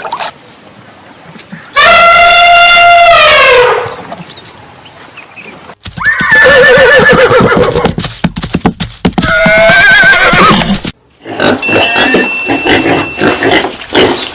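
Horse neighing: three loud whinnies, the first held and then falling away, the next two with a wavering pitch, followed by a choppier run of rapid pulses near the end.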